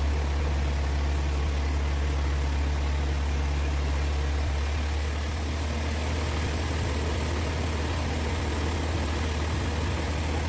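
Sawmill machinery's engine running steadily with a deep, even hum. The sound shifts slightly about halfway through.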